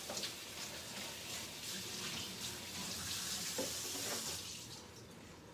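Water running from a kitchen tap, a steady splashing hiss that stops about four and a half seconds in.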